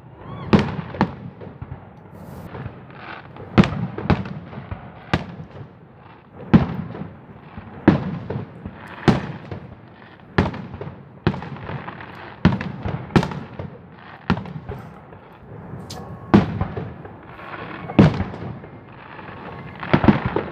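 Fireworks going off in a steady run of bangs, about one a second, with crackling between the bursts.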